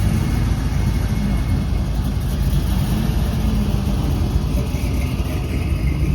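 Car engine running steadily with a low rumble.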